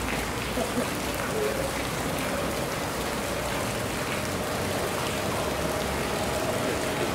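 Steady rushing noise, even and unbroken, with faint voices in the background.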